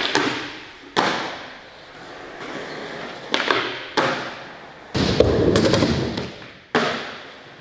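A Capsule prototype skateboard, made without maple, ridden on a concrete floor and rails. About six sharp clacks and thuds come from the board hitting and landing, with wheel roll between them. About five seconds in, a louder rough slide or grind lasts about a second.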